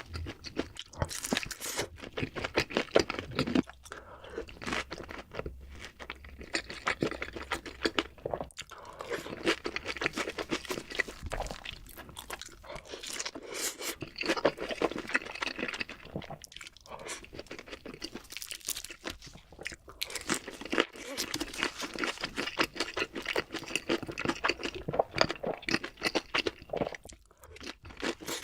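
Close-up crunchy chewing and biting of food, dense irregular crackles with a few short breaks, played back faster than normal speed.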